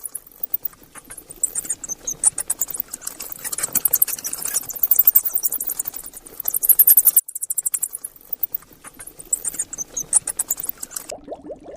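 A small animal making rapid, very high-pitched squeaks or chirps in quick succession, with a brief pause about seven seconds in.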